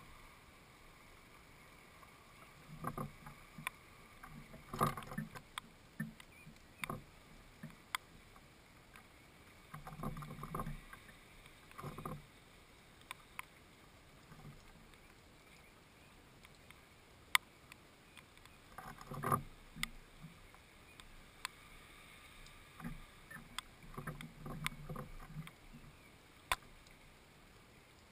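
House sparrows at a wooden feeder, pecking and scrabbling: irregular knocks and taps on the wood and the hanging fat ball, some in short scuffling clusters, with a few single sharp clicks.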